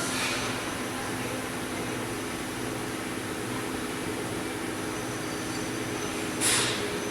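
CORREA FP-50/60 CNC bridge milling machine running with a steady hum, and a short burst of hiss about six and a half seconds in.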